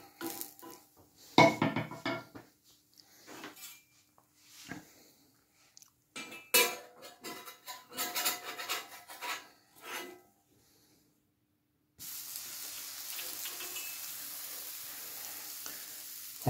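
Utensils knocking, clinking and scraping on a crêpe griddle for about ten seconds, then, after a short break, a steady sizzle of a crêpe frying on the hot plate.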